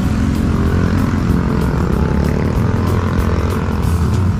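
A steady engine drone with a low hum that holds level throughout.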